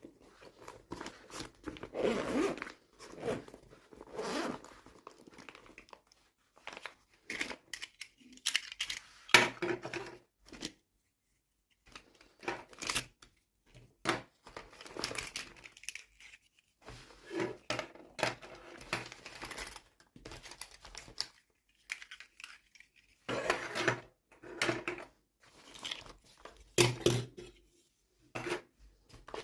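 Toy packaging being torn open and crinkled by hand during an unboxing, in irregular bursts of tearing and rustling with short clicks and brief pauses between them.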